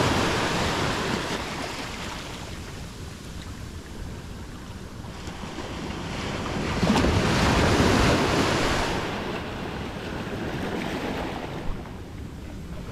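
Ocean surf washing onto a sandy beach: one wave fading away at the start, then a louder one building from about five seconds in and dying away by about ten seconds. Wind buffets the microphone throughout.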